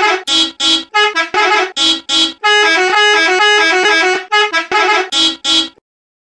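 A musical bus horn playing a jingle: a tune of short, bright, pitched honks, joined in the middle into a run of longer notes stepping up and down, then more short honks, stopping near the end.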